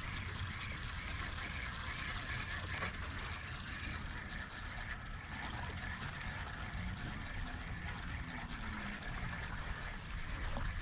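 Spinning reel being cranked to retrieve a lure, a soft rhythmic whir about three times a second, over steady low noise of the boat on the water.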